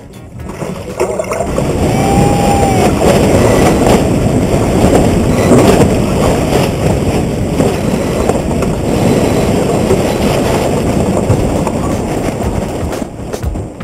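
Wind buffeting the microphone and water rushing past the hulls of a trimaran sailing fast in a freshening breeze, building over the first two seconds and easing near the end.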